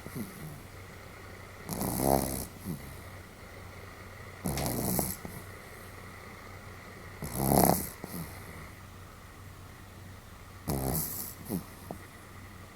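A Pomeranian snoring rather heartily: four rattling snores about three seconds apart, some trailed by a short, faint falling whistle.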